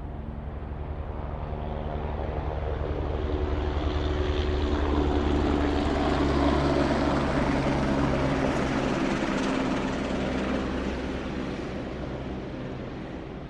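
Helicopter passing close overhead: the rotor chop and turbine noise build to a peak about halfway and fade away toward the end.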